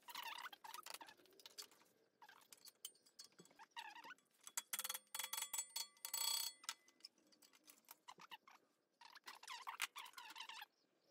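Clinks, knocks and rattles of G-clamps, hand tools and aluminium sheet being handled on a steel workbench, with a brief metallic ring a little past the middle.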